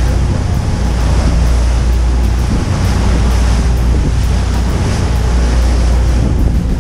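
Tour boat's engine droning steadily, with wind and rushing water over it.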